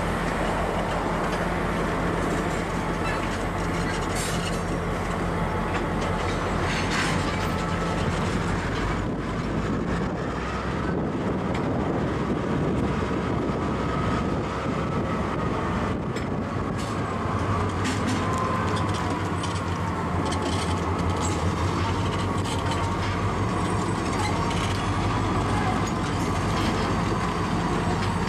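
Slow-moving freight train of tank cars hauled by an Angelina & Neches River Railroad diesel locomotive: a steady low engine hum, with occasional clanks of wheels over the rail joints and a faint wavering wheel squeal in the second half.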